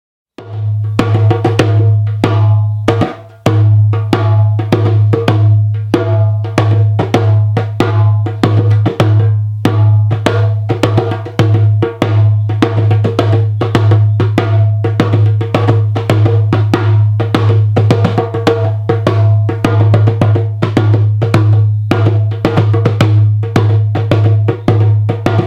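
Fast, dense drumming over a steady low drone, starting suddenly just after the beginning, with a brief break about three seconds in.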